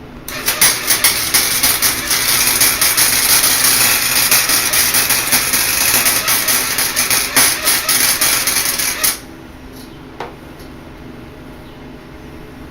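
Electric arc welding: the arc crackling and sizzling steadily with sharp pops, striking up just after the start and cutting off sharply about nine seconds in.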